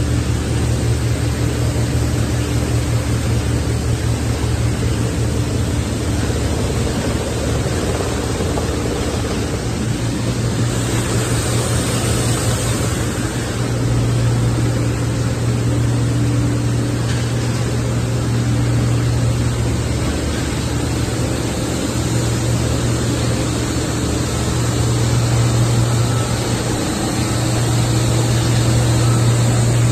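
Plastic film washing and recycling line running steadily: electric motors give a constant low hum under a broad, even machine noise, with a brief rise in hiss about eleven seconds in.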